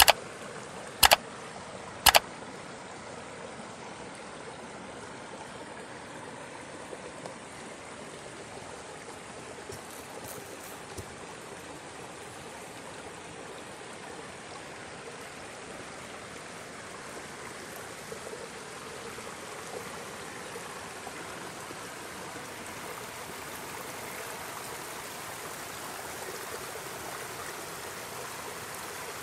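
Shallow forest stream rushing and gurgling steadily over rocks. About a second in, two loud sharp clicks, a second apart, from a subscribe-button animation's mouse-click effect.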